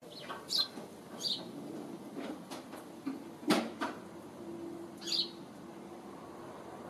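Small birds chirping: three short, high chirps a few seconds apart, with a single sharp knock about three and a half seconds in.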